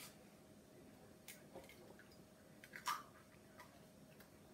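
Near silence broken by a few faint clicks and taps of an egg being cracked and its shell pulled apart, the clearest about three seconds in.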